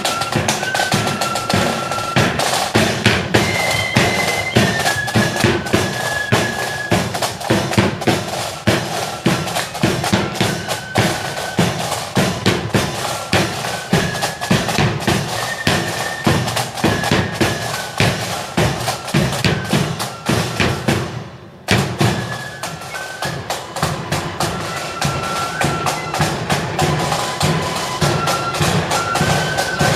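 Marching flute band playing a tune: high flute melody over rapid snare-drum rolls and bass-drum beats. The sound drops out briefly about two-thirds of the way through, then the band carries on.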